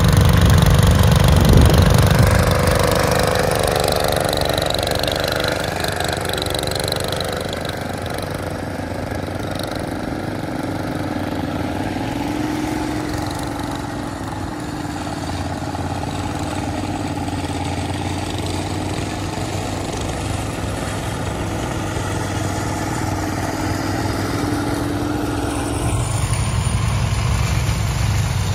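Small garden tractor engine running steadily. It is loudest for the first couple of seconds, eases off through the middle, and grows fuller again near the end.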